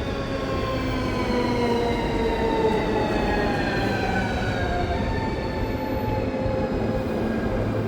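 Train running with a steady low rumble, overlaid by several whining tones that slowly fall in pitch.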